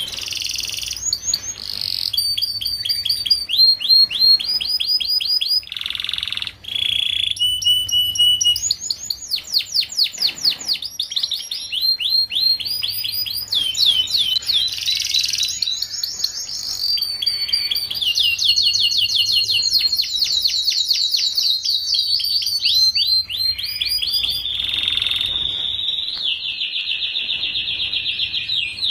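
Young domestic canary singing a continuous song of fast trills and rapidly repeated sweeping notes, changing phrase every few seconds. It ends in a long, even rolling trill near the end.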